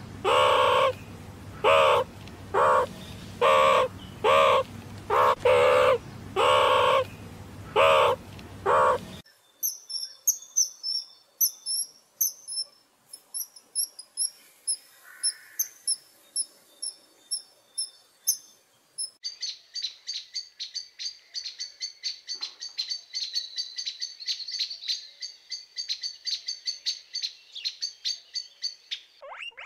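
A meerkat gives a run of loud short calls, about one a second, over a low steady hum. About nine seconds in, the calls give way to a kingfisher's thin, very high chirps in quick runs. Near the twenty-second mark a crimson sunbird's fast, high, continuous trilling song takes over.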